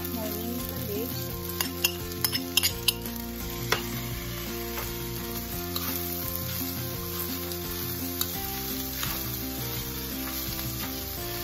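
Fried rice sizzling in a nonstick frying pan as moringa leaves are tipped in and stirred through with a spatula. Several sharp clicks and knocks against the pan come about two to four seconds in.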